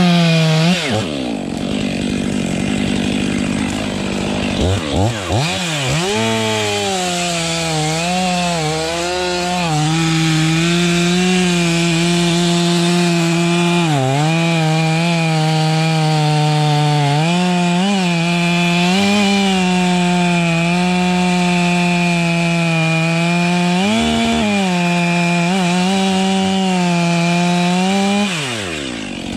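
Chainsaw revving up and then running at high throttle while cutting wood, its pitch dipping now and then as the chain bites and recovering. It drops off about a second in and again near the end as the throttle is let go.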